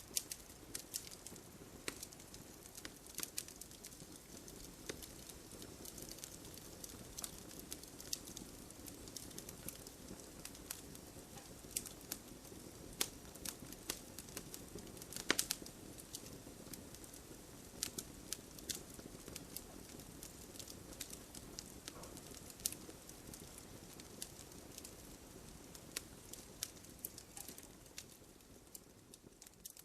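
Wood fire burning, with many irregular sharp crackles and pops over a steady low hiss. The loudest pop comes about halfway through.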